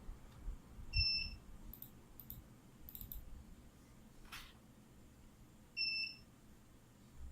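Two short electronic beeps, one about a second in and the other near the end, with a few faint clicks between them.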